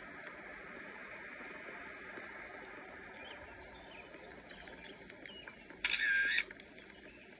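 Intro sound effect of a camera shutter: one short, loud shutter click lasting about half a second, about six seconds in, over a faint steady hiss with scattered light ticks.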